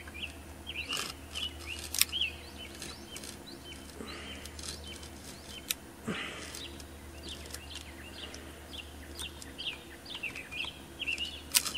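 Small birds chirping over and over in the background, with a few sharp clicks from piston rings being pried off a chainsaw piston; the loudest clicks come about two seconds in and near the end.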